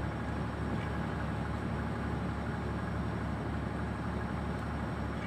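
An engine running steadily at idle, a constant low drone.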